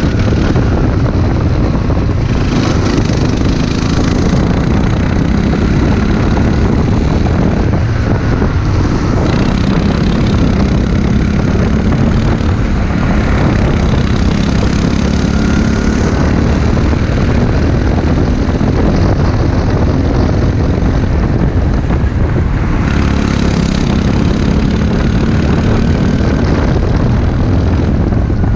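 Sports kart engine running hard through a lap, heard close up from the kart, its note rising and falling a little as it goes through the corners.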